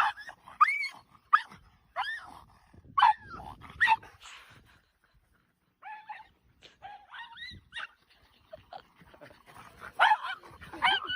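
A small dog yipping in short, high-pitched yelps: a quick run of about six in the first few seconds, a pause, then more yips and a louder cluster near the end.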